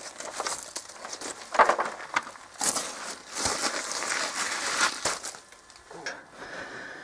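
Irregular crunching and scraping of gravel, with clothing rustle, as a person slides out from under a truck, gets up and moves off.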